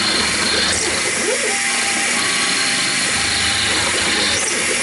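Taig CNC mill's spindle running steadily while a small end mill plunge-cuts cast iron, under the steady hiss of an air blast clearing the chips.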